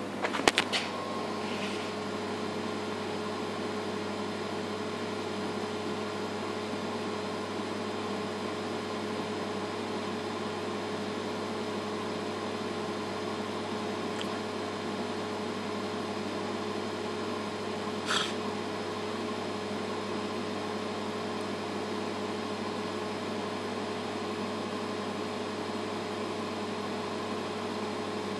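ECRM Stingray 52 imagesetter running while it records an image onto film: a steady hum with several constant tones. A few short knocks in the first second and one short click about 18 seconds in.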